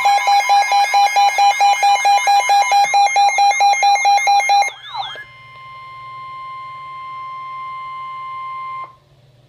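Emergency Alert System alert tones: a loud alarm tone pulsing about five times a second with warbling sweeps, which glides down about five seconds in and gives way to a quieter steady tone that cuts off near the end.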